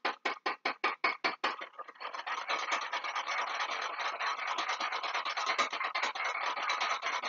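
Flour, water and milk slurry for gravy being mixed by hand to work out the lumps: rhythmic strokes, about five a second, for the first two seconds, then a faster, continuous scratchy rubbing.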